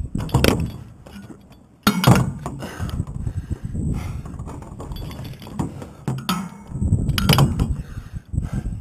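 Wind buffeting the microphone high up on a steel tower, with climbing hardware clinking against the steel. A few louder clinks stand out, the sharpest about two seconds in after a brief lull in the wind.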